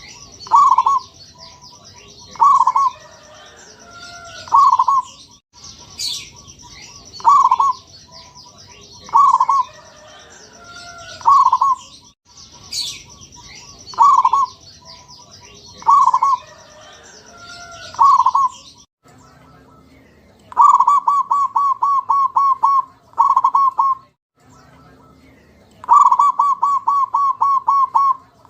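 Zebra dove (perkutut) cooing: loud, rounded coos repeated about every two seconds, over a steady high-pitched buzz that stops about 19 seconds in. After that come quick runs of short staccato coo notes.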